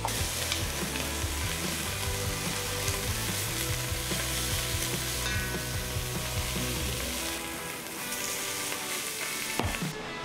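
Cubes of beef brisket sizzling as they sear in hot oil in a pot, turned with metal tongs, with a few utensil knocks near the end.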